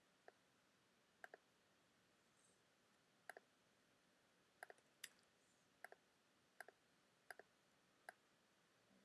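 Faint computer mouse clicks, about a dozen, many in quick pairs, against near silence.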